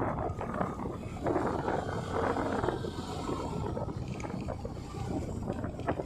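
Wind rushing over the microphone of a moving motorcycle, with the engine and road noise running underneath. A stronger gust comes about a second in and lasts a second or so.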